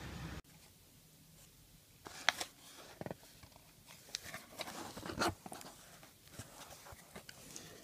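A cardboard shipping box and its packing being opened and handled by hand: scattered rustles, scrapes and sharp crackles, loudest about two seconds in and again around five seconds. It opens with a brief steady outdoor hiss that cuts off half a second in.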